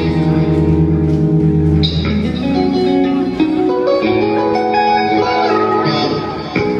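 A live instrumental progressive-metal band playing loudly: eight-string electric guitars over drums. Held, ringing guitar notes change to new chords about two seconds in and again about four seconds in.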